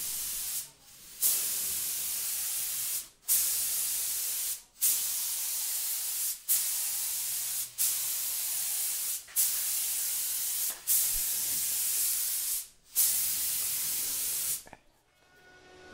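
Compressed-air spray gun with a gravity-feed cup spraying two-pack varnish: a loud hiss in repeated stretches of one to two seconds with short breaks between, about nine in all, stopping near the end.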